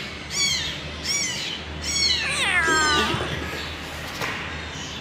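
Cat meowing: a few short high-pitched mews, then a longer meow that falls steeply in pitch about halfway through.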